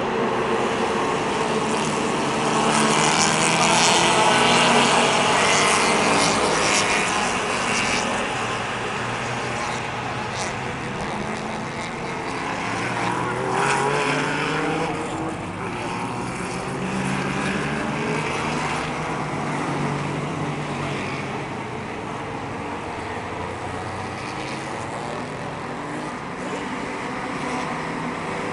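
Race car engines passing on the circuit, revving with pitch sweeping up and down, loudest a few seconds in, then easing to a steadier, more distant engine drone.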